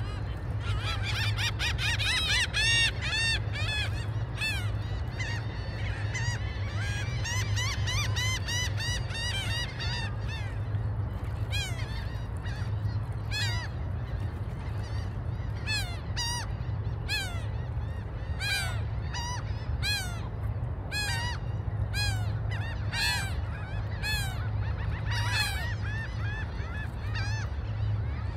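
A flock of gulls calling, many overlapping arched cries, thick for the first ten seconds or so and then thinning to scattered calls, over a steady low rumble.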